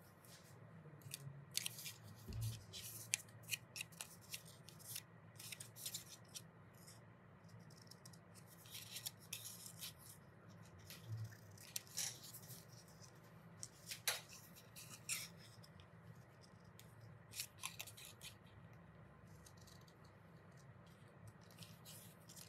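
Scissors with steel blades snipping paper in a string of short, quick cuts, scattered and irregular, that thin out near the end.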